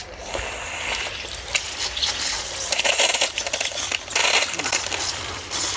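Crackling, sputtering hiss of water and air spitting through a 16 mm drip-irrigation line and its connector while the line is run to test for leaks, with louder spells about two and four seconds in.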